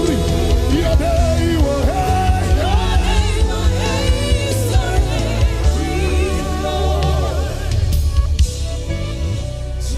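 Live worship band playing, with drums, bass and sustained keyboard chords, and voices singing wordless lines over it.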